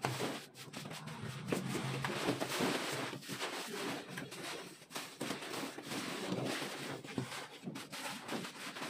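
Plastering trowel scraping and spreading wet cement-sand mortar across a concrete ceiling slab in irregular strokes.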